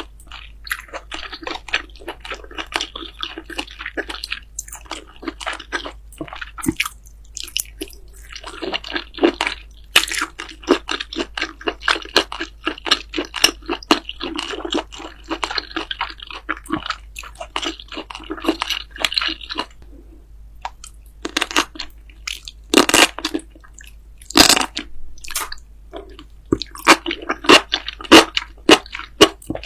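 Close-up eating sounds: chewing and biting with crunchy crackles and wet, squishy smacking in quick runs. A few sharp, louder crunches come about two-thirds of the way through.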